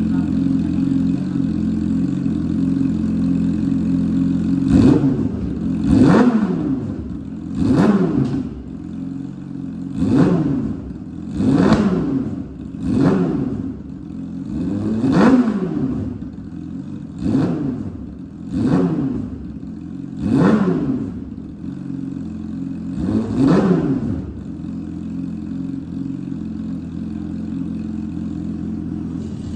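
Yamaha R6 inline-four sport-bike engine on an aftermarket exhaust, idling and then revved in about ten quick blips, each rising and falling in pitch, before it settles back to a steady idle for the last few seconds.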